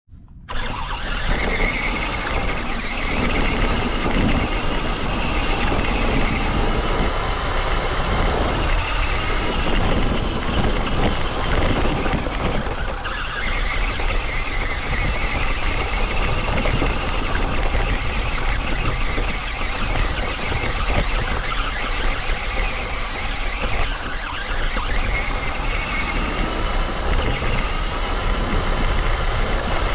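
Onboard sound of a radio-controlled car being driven over gravel and grass: the motor and drivetrain whine, rising and falling with speed, over the crunch and rumble of the tyres. It starts about half a second in.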